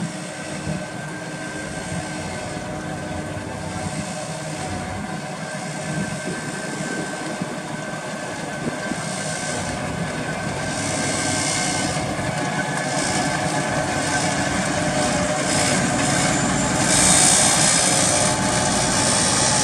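Large farm tractor's diesel engine working under load as it pushes and spreads chopped grass across a silage clamp, with a steady whine and hiss from the front-mounted silage spreader. It grows louder as the tractor comes close and is loudest near the end.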